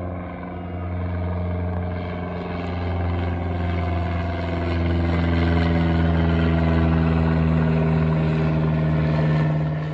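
Piston engine and propeller of a single-engine high-wing light plane droning overhead, growing louder about halfway through, its pitch sinking slightly as it passes.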